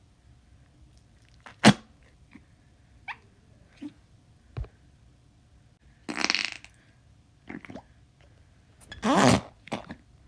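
Noise putty squeezed in its pot, pushing out trapped air in fart-like squelches: a hissy one about six seconds in and a louder, wavering, pitched one about nine seconds in, with small clicks and pops between.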